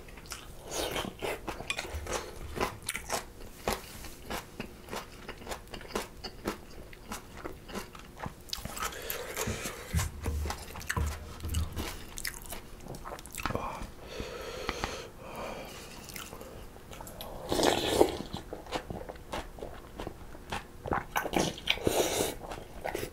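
Close-miked chewing and crunching of kimchi and mulhoe (cold raw-fish soup), a dense run of small wet clicks and crunches. A wooden spoon scrapes and knocks in a ceramic bowl, with a louder noisy burst near the end.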